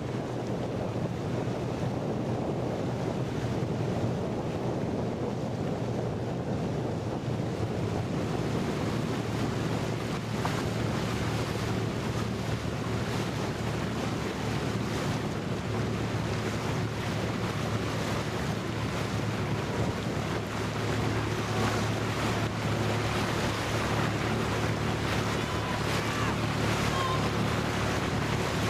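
Wind buffeting the microphone and water rushing past, over the low steady hum of a motor launch's engine following the race.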